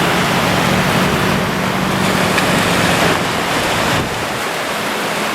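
Ocean surf breaking and washing up the beach, heavy after a typhoon, with wind on the microphone. A low steady hum runs under it for the first four seconds.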